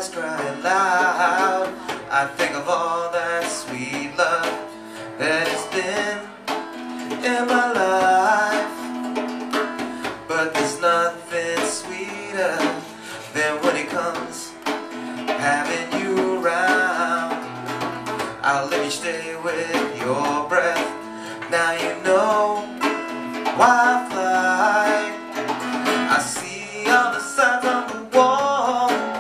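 A live song: a man sings over a strummed acoustic guitar, with a drummer keeping time on a small kit and cymbal.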